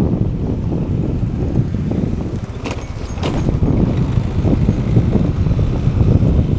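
Low, gusty rumble of wind buffeting the microphone, with a faint brief rattle about three seconds in.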